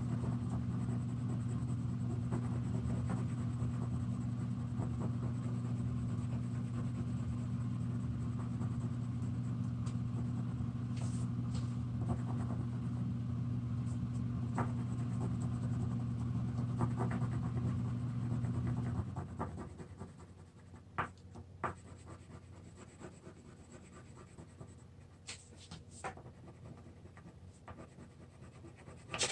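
Coloring on paper: the pen or crayon scratches in short strokes. A steady low hum runs under it and stops about two-thirds of the way through.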